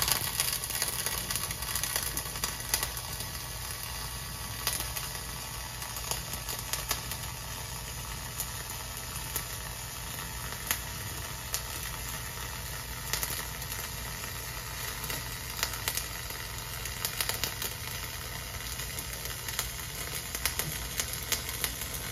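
Flux-core wire welding arc burning steadily, a continuous crackling sizzle with frequent sharp pops, run with a deliberately short wire stick-out.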